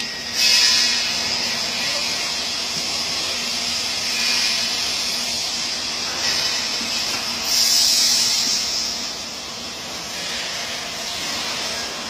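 MIG welding arc hissing steadily over a low hum from the welding machine, with several louder surges, the longest and loudest about eight seconds in.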